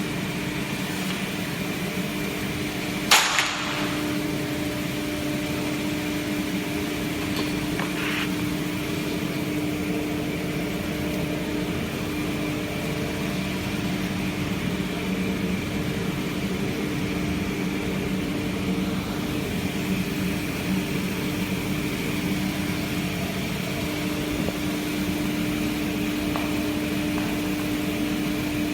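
Sliding table panel saw running steadily with a constant hum. A sharp knock comes about three seconds in, and a fainter one around eight seconds.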